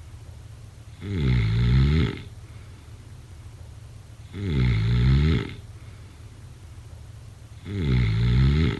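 A person snoring: three snores at an even pace about three seconds apart, each lasting about a second. A low steady hum continues between them.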